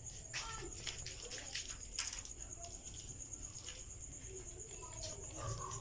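Scattered light taps and scrapes of a wooden stick against foam brick wall panels, several of them close together about two seconds in, over a steady high-pitched trill.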